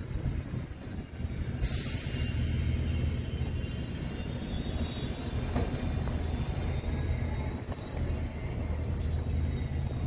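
Outdoor ambience: a steady low rumble, with a brief rush of hiss about two seconds in and another near eight seconds.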